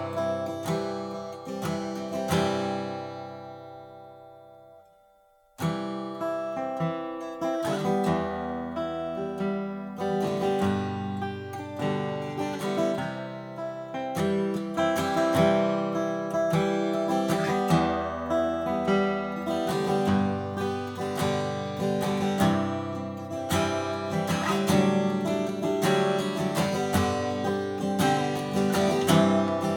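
Martin D-1 Authentic 1931 twelve-fret dreadnought acoustic guitar being played: chords ring out and fade almost to silence for a few seconds, then the playing resumes with strummed chords over strong bass notes.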